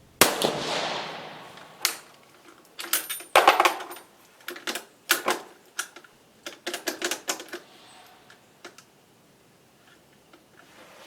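A single shot from an Italian Vetterli 1870/87/15 bolt-action rifle firing a light cast-bullet load; the report dies away over about a second and a half. Then come several runs of sharp metallic clicks and clacks as the bolt is worked to eject the case and chamber the next round.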